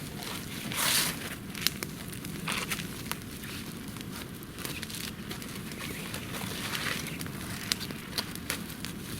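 Wood campfire crackling, with scattered sharp pops and a louder rustle about a second in.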